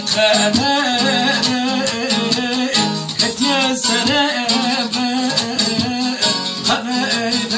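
Two long-necked bağlama sazes strummed together, with a man singing a Turkish folk song (türkü) in long, wavering ornamented notes over them.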